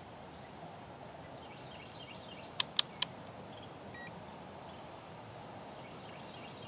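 Three sharp clicks in quick succession about two and a half seconds in, from the rotary selector dial of a clamp multimeter being turned to the DC volts setting. A steady high-pitched whine runs underneath.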